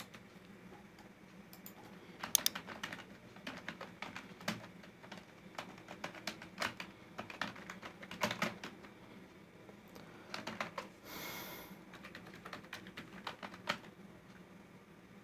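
Typing on a computer keyboard: irregular runs of keystroke clicks with short pauses between them. A short hiss comes about eleven seconds in.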